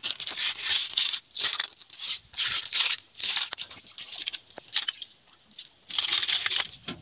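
River snail shells clattering against each other and an aluminium pot as they are put in by hand, in a run of short irregular rattling bursts with a brief lull about five seconds in.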